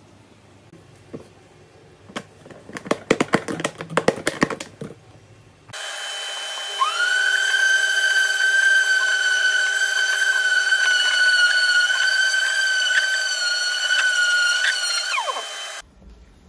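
First a burst of clicks, knocks and rattles as the plastic box and tool are handled. Then a steady rushing noise starts and an electric wood router's motor spins up to a steady high whine. It runs for about eight seconds, then winds down with a falling pitch and cuts off.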